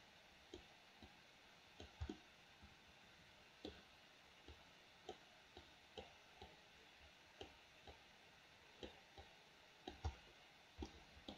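Faint computer mouse clicks, irregular, a little under two a second, with the loudest pair near the end.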